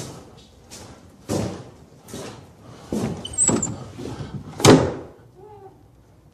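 Old wooden door being pushed open, with a run of knocks and thumps, the loudest about three-quarters of the way through, and a brief high squeak just after the midpoint.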